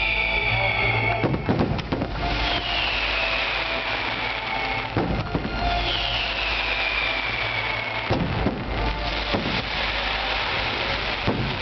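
Fireworks going off: three long whistles falling in pitch, each ending in a sharp bang, then one more bang near the end, over a steady crackling hiss.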